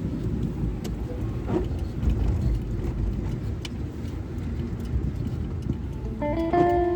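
A steady low rumble like road traffic, with a few faint clicks. Near the end, sustained bell-like musical notes come in over it.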